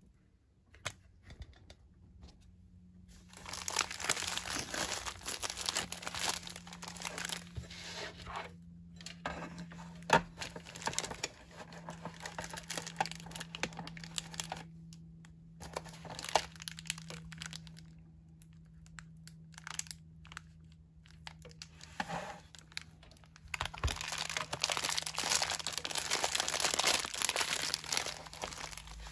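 Clear plastic outer wrap of an MRE pouch crinkling and crackling in bursts as it is handled and pulled at, with one sharp crack about ten seconds in.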